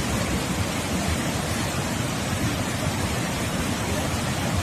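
Fast floodwater of a swollen river rushing: a steady, even wash of water noise with no breaks.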